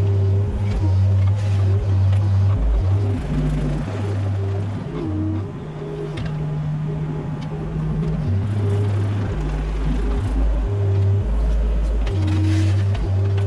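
Mini excavator's diesel engine running under load, its low drone rising and falling as the hydraulics work, with a wavering hydraulic whine above it.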